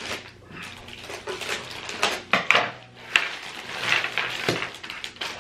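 Snack packaging rustling and crinkling as it is handled, with irregular sharp crackles.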